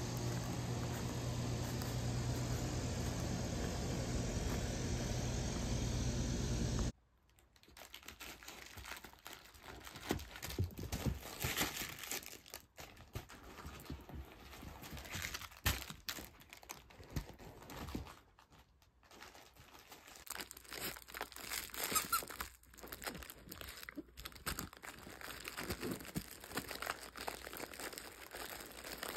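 A steady rushing noise, then from about seven seconds in, a miniature dachshund puppy playing with plush toys: crinkling and rustling with scattered small clicks.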